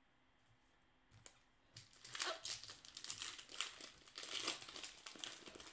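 A baseball card pack's wrapper being torn open and crinkled by hand, starting about two seconds in and going on as a dense, continuous crackle.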